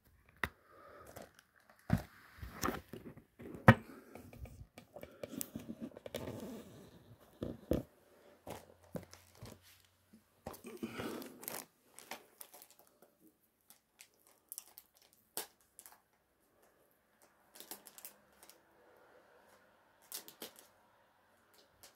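Cellophane shrink-wrap being torn and peeled off a perfume box: crinkling and crackling with sharp clicks, busiest over the first twelve seconds or so, then thinning to occasional taps and rustles.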